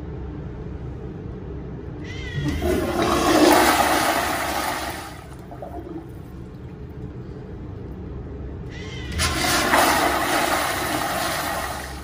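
Wall-hung Zurn toilet flushing twice: each flush opens with a short rising whistle, then a loud rush of water into the bowl that lasts about three seconds.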